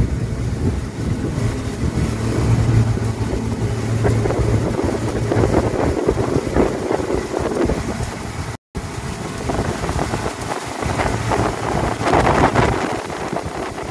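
Outboard-powered fishing boat running at about 29 mph on open water: a steady engine hum under heavy wind buffeting on the microphone and the rush of the wake. The sound cuts out for a moment about eight and a half seconds in, then the same engine and wind noise carries on.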